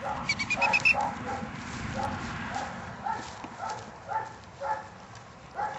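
Dogs barking over and over, about two short barks a second, with a quick run of high-pitched chirps in the first second.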